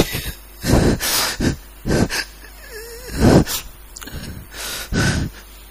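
A man weeping close to the microphone: a run of short gasping sobs and sniffs, with a brief wavering whimper of voice about three seconds in.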